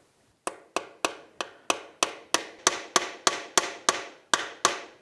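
Hammer tapping the shift stopper pin down into a Yamaha Raptor 700R engine's crankcase: about fifteen quick, evenly spaced strikes, three to four a second, each ringing briefly.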